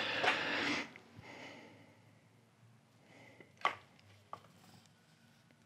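A short breath out close to a clip-on microphone, followed by faint rustling and a single small click a few seconds later.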